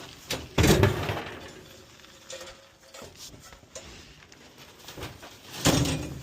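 Two loud thuds about five seconds apart, with faint clinks between, as junk and scrap from a driveway pile are handled and dropped.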